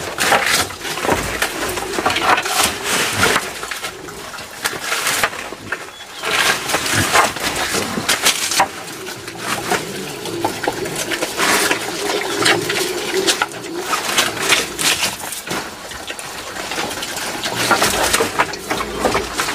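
Wild boar chewing and crunching fresh banana stems and leaves, with repeated crisp snaps and leaf rustling as it roots through the pile.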